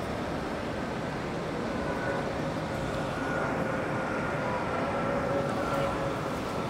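City street traffic noise: a steady rumble of vehicles with a faint, level whine over it.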